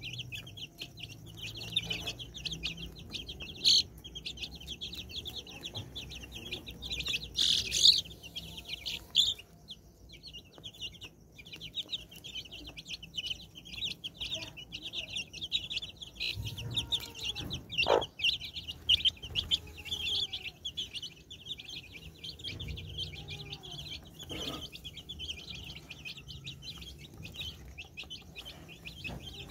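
A brood of chicks peeping continuously in quick, high cheeps, with a hen clucking low now and then among them.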